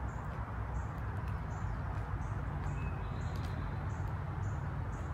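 Outdoor background: a steady rushing hiss with a short, high chirp repeating about twice a second from a small animal.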